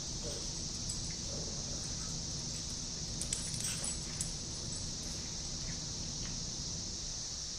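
Small dogs play-wrestling over a plush toy: faint dog vocal sounds near the start, then a few light clicks and scuffles a little past the middle, over a steady hiss.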